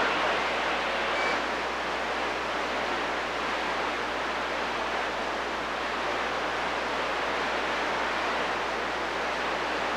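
CB radio receiver hiss: steady band static with no one talking on the channel, heard straight from the radio's audio output.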